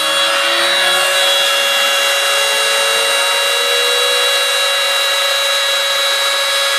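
CNC router spindle running, very loud, as it mills soft florist's foam: a steady whine with several held high tones, under which a lower tone slowly rises in pitch.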